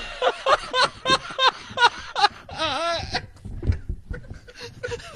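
A person laughing in short, quick bursts, about three a second, with a longer wavering laugh near the middle.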